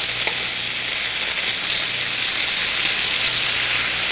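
Pork sausages sizzling in a skillet on high heat as the last of the steaming water boils off and the fat starts to render: a steady hiss, with a single light click just after the start.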